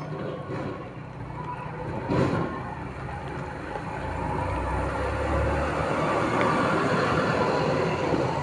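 Steady running noise of a moving vehicle heard from inside it, with a single knock about two seconds in and the rumble growing louder from about four seconds in.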